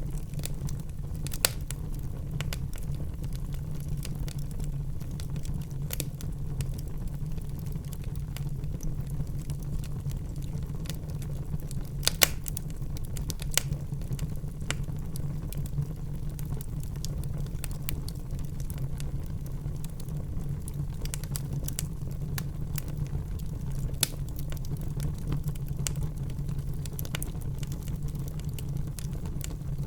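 Wood fire burning in a fireplace: a steady low rumble with scattered sharp crackles and pops, the loudest a quick pair of pops about twelve seconds in.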